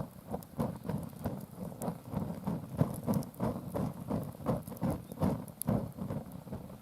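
An uchiwa hand fan waved back and forth over bonfire ashes, each stroke a whoosh of air, about two or three strokes a second, with a few small clicks among them.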